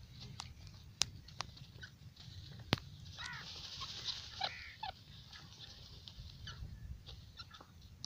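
Francolins dust-bathing in dry sand: a scratchy hiss of sand flicked up by their wings in the middle, with short bird chirps around it and three sharp clicks before it.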